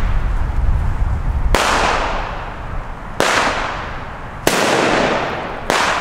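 Funke Pirat P1 firecrackers going off one after another: four sharp bangs about a second and a half apart, each with a long echoing tail.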